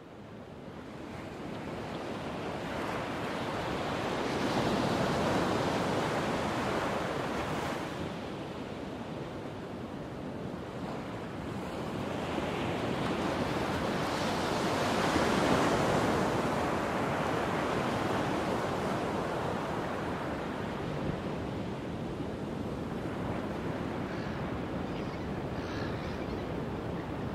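Ocean surf washing in, a steady rush of breaking waves that swells twice, about five seconds in and again about fifteen seconds in.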